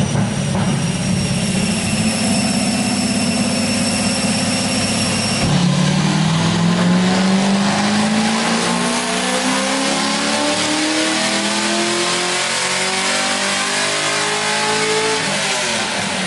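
A V8 car engine on a chassis dyno: it runs steadily at first, then about five seconds in it pulls under load, its pitch rising slowly and evenly for roughly ten seconds before dropping off near the end as the throttle is released.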